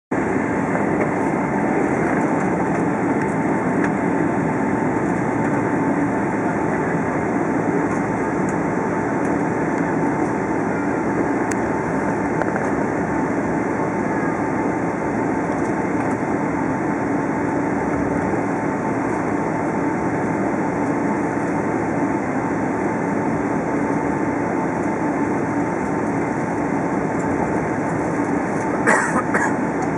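Steady cabin noise inside a Boeing 777-300ER taxiing: the even hum of its GE90 engines at low power and the cabin air, with a faint steady tone through it. A brief clatter near the end.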